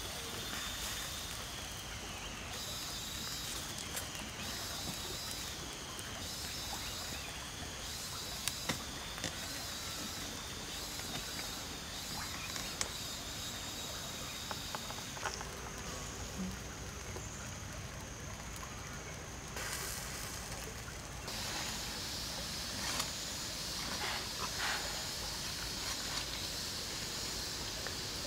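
Whole chicken roasting on a bamboo spit over a wood fire: a steady hiss with scattered sharp crackles. A high wavering buzz that dips in pitch every second or two sits over it during the first half.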